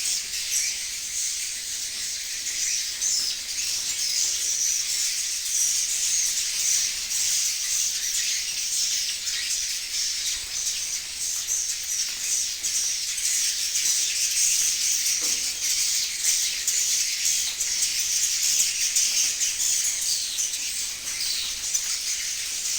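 A flock of swiftlets twittering inside a swiftlet house: a dense, continuous mass of high, rapid chirps.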